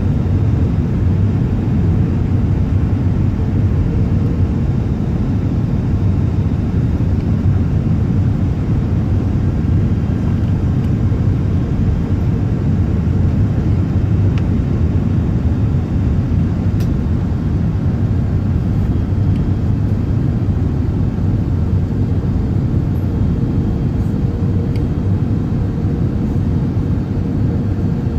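Steady rumble of an Airbus A380 heard from inside the cabin: engine and airflow noise, even and unchanging, with a faint hum over it.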